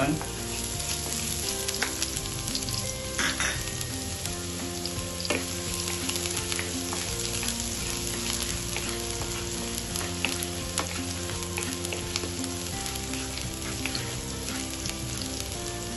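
Chopped onion sizzling steadily in hot oil in a nonstick frying pan while a wooden spatula stirs it, with a few light scrapes and taps against the pan.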